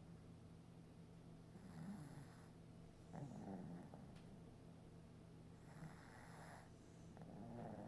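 Faint snoring in sleep: two slow breaths, each a higher rasp followed by a lower one, over a steady low hum.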